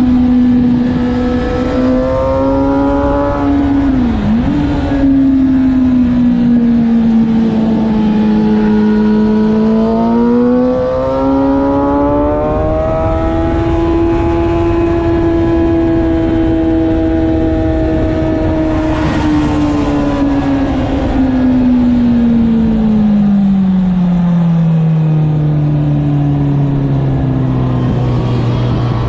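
Motorcycle engine heard onboard at track speed. Its note dips briefly about four seconds in, sags, climbs and holds high through the middle, then falls away to a low, steady note near the end as the bike slows. Wind noise runs underneath throughout.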